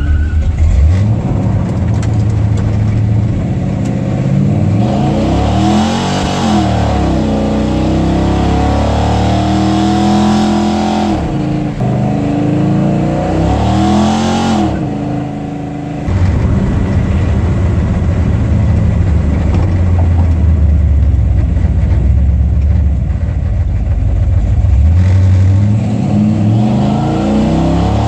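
Car engine revving: its pitch climbs and drops back several times, settles into a steadier low run after the middle, then climbs again near the end.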